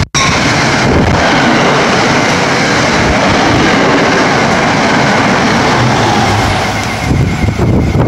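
NJ Transit push-pull commuter train of Comet V coaches running through the station at about 90 mph without stopping: a loud, steady rush of wheels on rail and displaced air, turning rougher and more uneven near the end as the train clears the platform.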